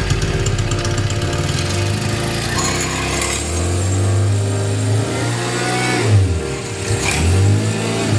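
Small four-stroke petrol engine of the kind used on crop-sprayer pumps, running, its speed falling and picking up again a couple of times in the second half.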